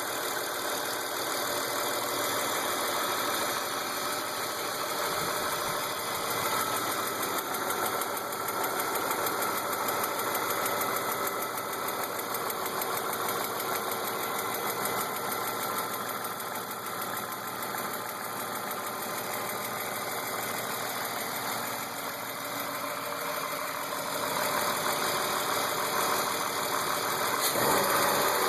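BMW E36 328i's M52 2.8-litre straight-six idling with a ticking noise. The tick persists although the lifters, chain tensioners, injectors, cam and crank sensors and VANOS seal have been replaced and the oil pressure, fuel pressure and cam-to-lifter clearance checked. The engine sound grows louder near the end.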